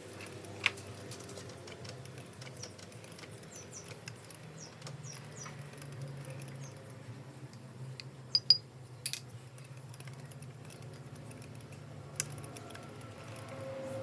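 Light metallic clinks and ticks of metal parts or tools being handled, a few sharp clinks standing out, the loudest pair about eight seconds in, over a low steady hum.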